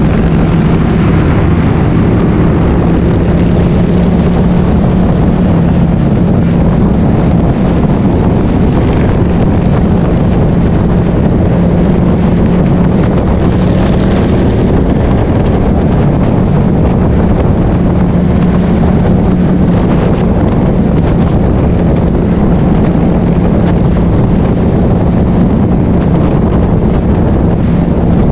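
Cruiser motorcycle engine running steadily at cruising speed, a low, even hum with no revving, under heavy wind rush on the bike-mounted microphone.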